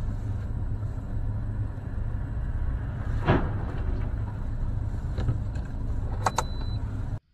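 Steady low rumble of a car's running engine, with a sharp click about three seconds in and two quick clicks near the end.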